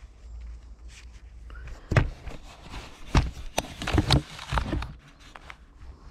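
Close handling noise as cycling gloves are pulled on and adjusted: rubbing and rustling of glove fabric, with a cluster of sharp irregular knocks in the middle.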